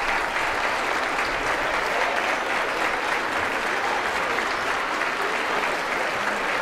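Large crowd applauding steadily, a dense, even clapping that neither builds nor fades.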